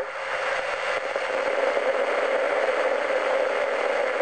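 Steady radio hiss and static from a VHF FM transceiver receiving the balloon's 145.200 MHz transmission of the Apollo 11 landing recording, during a pause in the voices, with a click at the very start.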